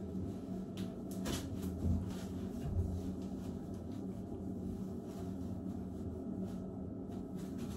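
A steady low hum in a small tiled room, with faint rustling and a few soft clicks from someone handling their hair and clothing.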